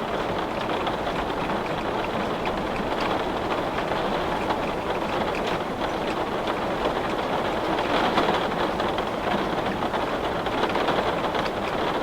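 Heavy rain falling on glass: a steady, dense hiss full of fine drop ticks, swelling slightly now and then.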